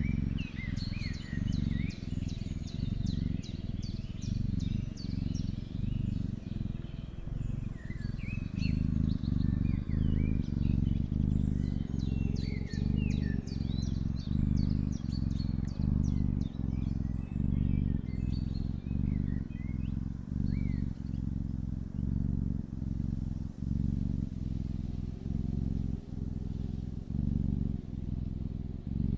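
Domestic cat purring close to the microphone: a low rumble that swells and eases about one and a half times a second with its breathing. Small birds chirp and twitter in the background through the first twenty seconds or so.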